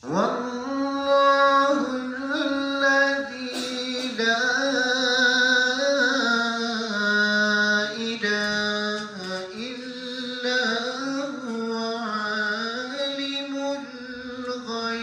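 A man's voice reciting the Quran in melodic tajweed style, in long drawn-out phrases of held and ornamented notes that glide between pitches.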